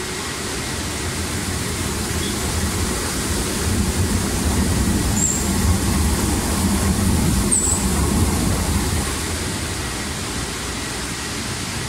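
Potato washing machine on a French fry production line running, with water spraying onto the potatoes: a steady low mechanical rumble under a hiss of water, louder in the middle.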